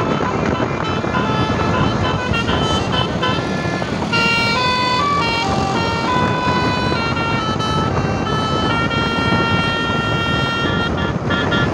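Tour bus's Basuri-style telolet musical horn playing a tune of stepped notes, several held for a second or more, over a steady background rush.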